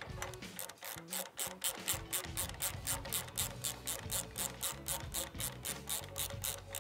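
Hand ratchet with a long socket extension clicking steadily, about six clicks a second, as it runs a bracket bolt in snug but not fully tightened.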